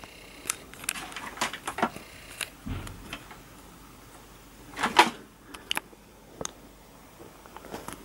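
Scattered light clicks and taps of hard plastic being handled, as fingers move the power cable and grey plastic parts of a Dyson vacuum's opened cord-rewind housing. There is a dull knock about three seconds in and a louder cluster of clicks about five seconds in.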